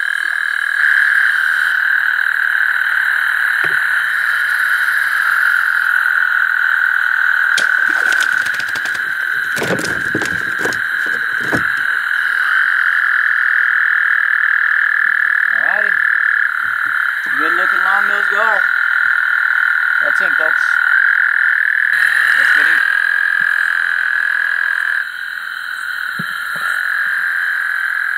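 Loud, unbroken night chorus of frogs calling, with a few sharp knocks about eight to eleven seconds in.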